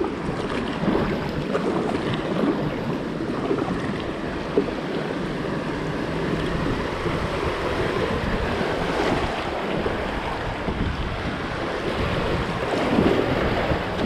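River rapids rushing and splashing around an inflatable kayak running through whitewater, with wind buffeting the microphone. The water gets somewhat louder near the end.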